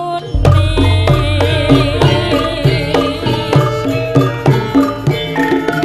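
Javanese gamelan music: struck bronze metallophones and drums keep a steady beat while a sinden (female singer) sings a long line with a wide, wavering vibrato that ends about three and a half seconds in. A deep low note sets in just after the start.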